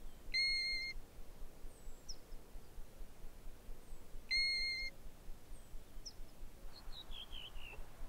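European golden plover calling: a plaintive, flat whistle given twice, each note about half a second long and about four seconds apart. Faint short chirps and a quick falling run of notes from a smaller bird come near the end.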